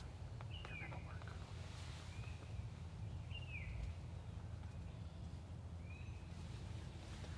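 Bird calls, each a short note falling in pitch, repeated at uneven intervals, over a steady low rumble.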